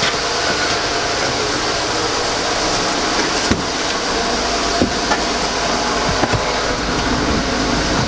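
Chevrolet Avalanche's V8 engine idling steadily, warming up after a cold start. A few light knocks sound about halfway through.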